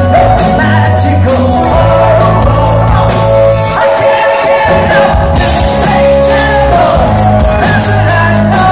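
Live rock band playing loud, with drums, bass and a male lead vocalist singing over them, recorded from within the audience.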